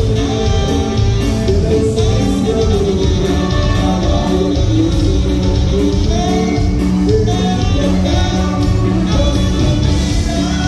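A dance band playing Latin American dance music with a singer over guitar and a steady, pulsing bass, loud and unbroken.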